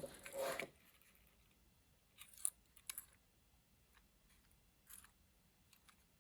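Small watch parts and their containers being handled: a short rattle at the start, then a few light clicks about two, three and five seconds in.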